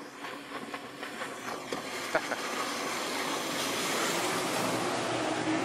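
Midnight Express 39-foot patrol boat's four Mercury 250 HO outboard motors running at speed, their drone mixed with the rush of hull spray and water, growing louder as the boat closes in and passes close by.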